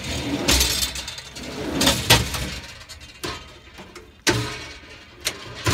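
Metal utility-body compartment door and drawer racks being handled, rattling and clattering, with one sharp metal knock about four seconds in.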